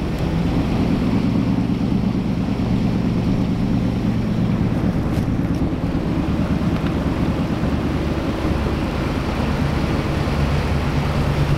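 Vintage ski boat's Ford 302 small-block V8 with open exhaust at the waterline, running steadily at low speed through shallow water.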